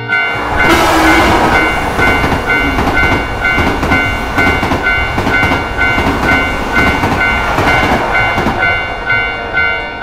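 Railroad crossing bell dinging evenly, about two and a half times a second, while a train passes through the crossing. The loud rushing noise of the train starts about half a second in.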